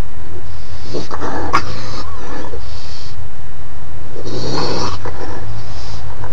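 Raccoon vocalizing in several short bursts, the strongest about a second in and again past the midpoint, over a steady low hum.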